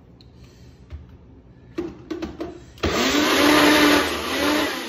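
A few knocks as the cup is set onto a personal blender's base, then about three seconds in the blender's motor starts and runs loudly with a wavering pitch, chopping ginger slices, lime zest and chili.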